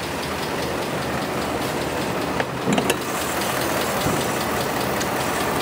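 2018 Ford F-150 engine idling under the open hood with a fast, even ticking noise, plus a few light clicks a little after halfway. It is the engine noise the truck was sold with, not cured by an engine flush and Ceratec treatment; the owner can't locate it and has heard it could be loose intake manifold flaps.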